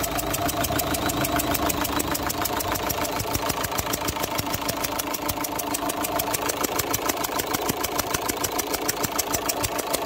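Opel Zafira 1.9 CDTI four-cylinder diesel idling with a fast, even ticking: compression is escaping past the number 2 injector, whose copper sealing washer needs replacing.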